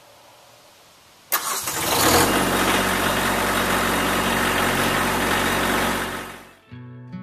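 Kubota compact tractor's diesel engine cranking and catching a little over a second in, then idling steadily; the engine sound fades out near the end as acoustic guitar music comes in.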